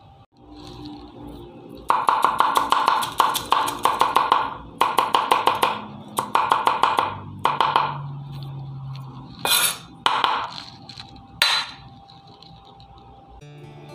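Cleaver chopping garlic on a thick round wooden chopping block: rapid runs of knocks starting about two seconds in and lasting several seconds, then a few single chops near the end.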